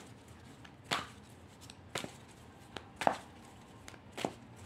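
A tarot deck being shuffled by hand: about five sharp card snaps, roughly a second apart.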